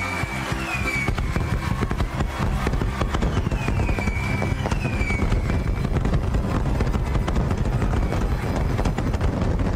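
Fireworks: a dense run of crackles and bangs, with a few short falling whistles in the first half.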